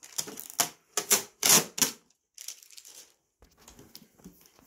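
Adhesive transport tape being peeled off a dehumidifier's plastic casing: about five short ripping strokes in the first two seconds, then only faint handling noise.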